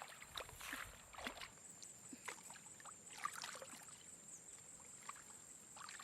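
Faint, irregular water sloshing and splashing, broken by small scattered clicks.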